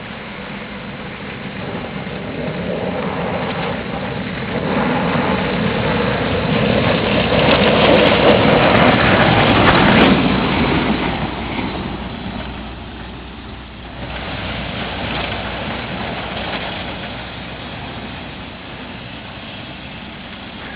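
Volvo FH12 snowplough truck's diesel engine running while its blades push and scrape snow, a dense rushing noise. It grows louder to a peak about halfway through, then fades, then rises briefly again.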